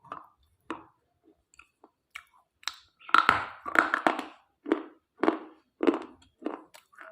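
Pieces of slate being crunched in the mouth: a few small clicks, then a loud crunching bite about three seconds in, followed by rhythmic chewing crunches about two a second.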